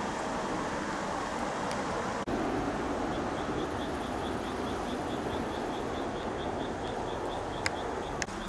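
Steady rushing noise around a train standing at a night station platform, broken by a cut about two seconds in. From about three seconds a faint high insect chirp repeats four or five times a second, and two sharp clicks come near the end.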